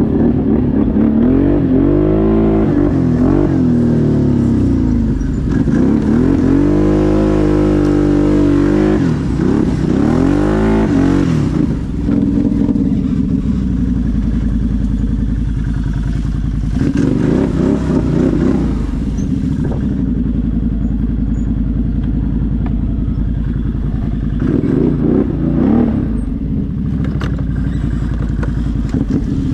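ATV engine running hard, its revs swinging up and down several times as the throttle is blipped and eased, with steadier running in between.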